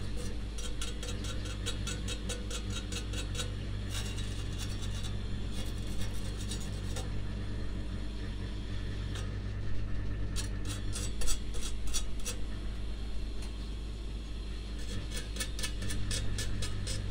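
A wire brush scrubbed over welded stainless steel rod in quick, even strokes, about six a second, in three bouts with short pauses between. One sharper knock stands out about eleven seconds in.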